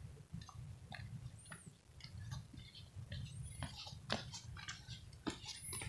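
Faint, irregular clicks and light ticks over a low, steady rumble, with a couple of brief high chirps.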